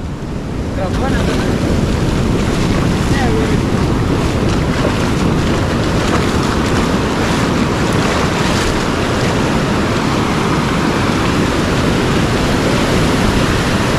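Ocean surf breaking and washing through the shallows, a steady rushing roar, with wind buffeting the microphone.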